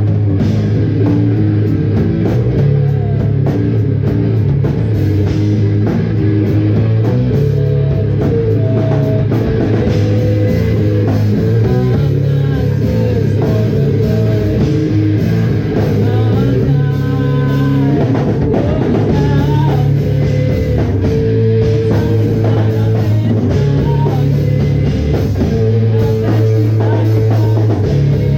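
Live rock band playing loudly: drum kit and electric guitar.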